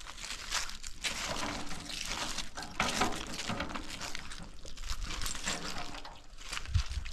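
Water pouring and splashing.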